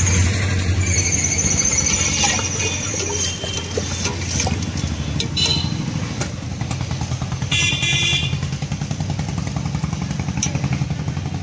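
Road traffic with motor vehicle engines running close by. A high squeal sounds from about one to three seconds in, and a short high tone about eight seconds in.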